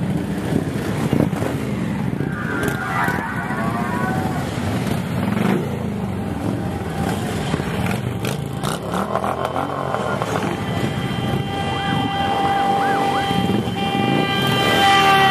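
Harley-Davidson V-twin motorcycles riding slowly past one after another, their engines rumbling at low speed. From about ten seconds in a horn-like tone is held to the end.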